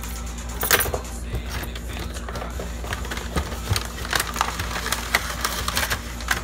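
Slime kit's cardboard box and plastic-wrapped contents being unpacked by hand: irregular crinkling, rustling and small clicks, with a louder rustle about a second in and a busy run of crinkles from about three to six seconds.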